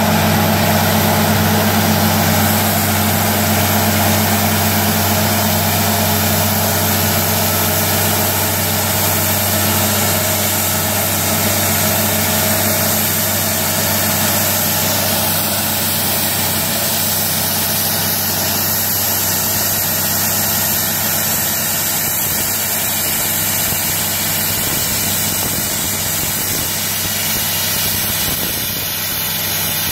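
Diesel engine of a tracked surface drill rig running steadily as the rig moves and turns on its crawlers.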